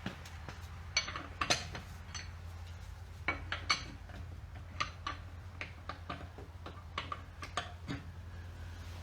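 Metal tools and parts clinking and tapping in irregular, scattered clicks, over a steady low hum.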